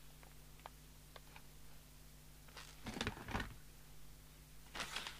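Quiet room with a low steady hum, a few faint clicks and rustles of a small metal plug and paper being handled, and a louder rustle about three seconds in.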